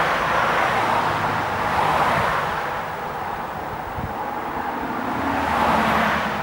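Small narrow-gauge steam locomotive running light at slow speed: its exhaust swells and fades about three times over a steady low hum.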